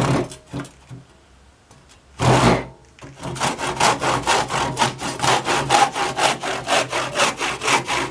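Old hand saw cutting through a piece of pine. A few slow starting strokes give way, about three seconds in, to fast, even strokes at about four a second: the old saw still cuts.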